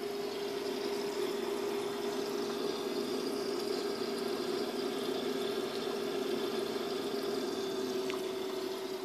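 Steady hum with an even hiss above it.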